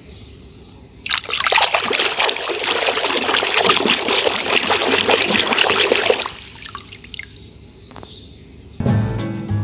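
Hands splashing and scrubbing a plastic toy figurine in soapy water in a basin, a dense crackly sloshing from about a second in until about six seconds in. Music starts near the end.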